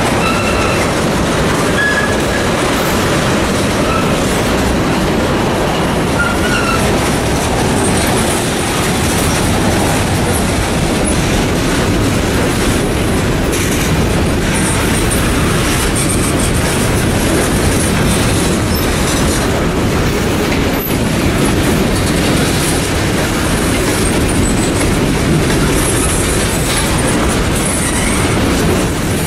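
Freight train of tank cars and covered hoppers rolling past: a steady heavy rumble of steel wheels on rail, with wheels clacking over the rail joints and a few brief high wheel squeals in the first seconds.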